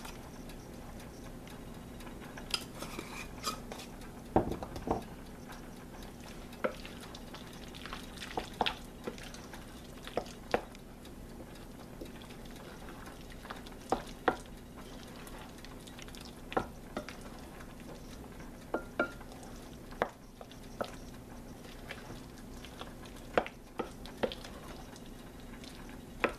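A spatula stirring a thick cream-cheese dip in a ceramic mixing bowl: soft squelching broken by irregular knocks and scrapes of the spatula against the bowl, about one every second or two.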